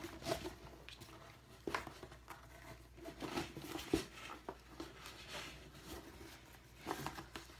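Faint rustling of ribbon and hands working against a white cardboard box while a ribbon bow is tied, with a few light taps of fingers on the cardboard.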